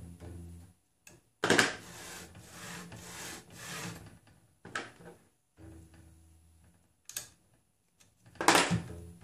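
Hands working on a 3D printer's X axis after its belt tensioner bolt is tightened: a long stretch of rubbing, sliding handling noise, a couple of sharp knocks, and a shorter loud rub near the end. Quiet background music with a low bass line plays between them.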